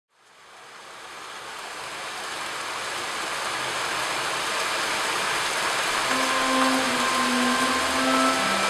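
Steady rain hiss fading in from silence. About six seconds in, soft held organ notes join it.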